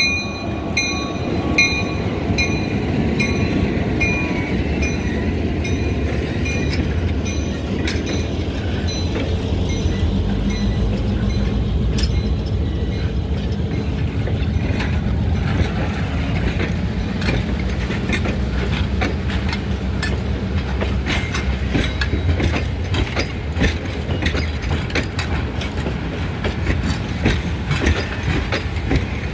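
A diesel locomotive's deep rumble as it passes, with a bell ringing in even strikes that fade away over the first several seconds. Then a line of passenger coaches rolls by, their wheels clicking over the rail joints and the crossing.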